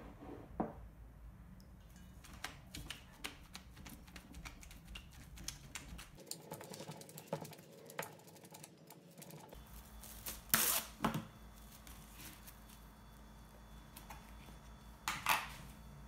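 Wooden pestle pounding and mashing cooked rice in a stainless steel bowl for ohagi: a run of irregular soft taps and knocks, with a few louder knocks in the middle and near the end.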